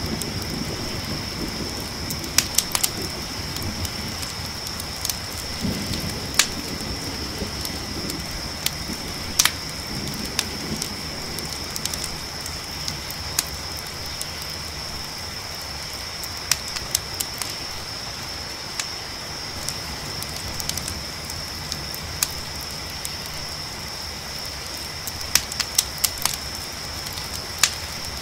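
Campfire crackling with scattered sharp pops over a steady hiss, and a constant high chorus of crickets. Low rumbles of distant thunder come and go in the first third, then fade out.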